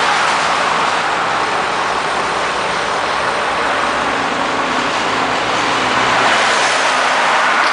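Convoy of heavy-duty tow trucks passing on a highway: a steady rush of tyre and diesel engine noise, with a faint low engine drone in the middle as the nearest trucks come by.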